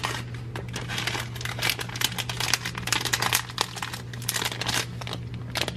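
Plastic gummy-candy pouch crinkling as it is handled and folded, a dense run of crackles that thins out after the first few seconds.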